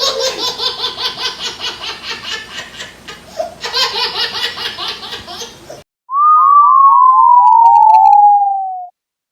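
Laughter in rapid, even pulses for about six seconds, stopping abruptly. Then a loud cartoon sound effect: about eight short whistling swoops, each stepping lower in pitch, cut off near the end.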